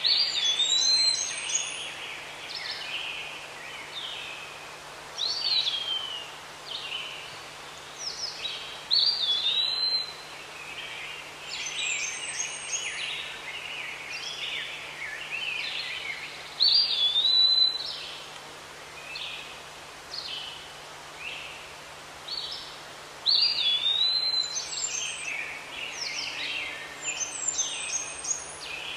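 Several wild birds calling: many short chirps, and a louder whistled phrase that swoops up and down, returning every few seconds.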